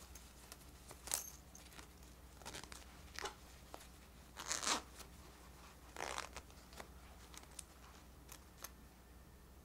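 Metal zipper on a plush sheep toy's fleece being zipped up in several short pulls, with small clicks from the metal pull tab. The longest, loudest pull comes about halfway through, another just after.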